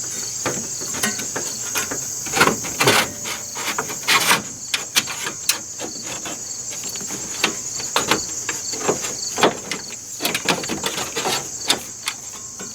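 A plastic fan shroud being worked up and slid out past the engine fan, with irregular knocks, clicks and scrapes of plastic on metal. Crickets chirp steadily throughout.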